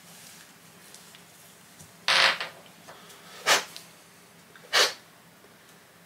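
Three short, breathy puffs of air about a second and a half apart, the first the longest, over low background hiss.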